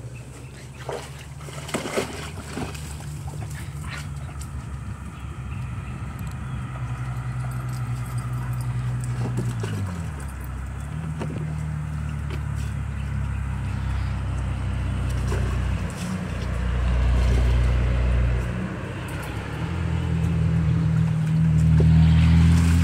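A motor engine running steadily, its low drone shifting pitch a few times and growing louder near the end.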